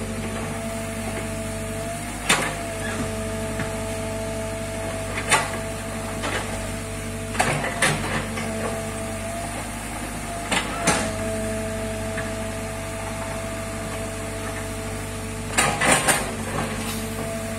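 Mini crawler excavator working: its engine runs with a steady hum and whine, and about five sharp knocks and clatters a few seconds apart as the steel bucket digs into, scrapes and drops rocks and earth.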